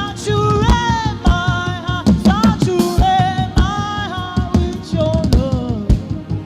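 Gospel worship music: a drum kit keeping a steady beat under a melody of held notes that bend and slide in pitch.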